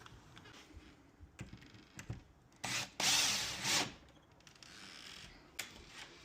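Lock hardware and tool work: a few light clicks and knocks, with a brief scraping, whirring burst just under a second long about three seconds in.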